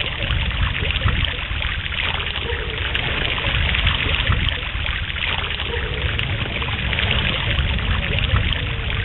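Running water rushing steadily, with a low rumble underneath.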